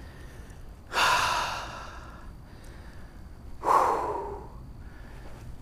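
A man breathing out hard twice, about a second in and again near the middle.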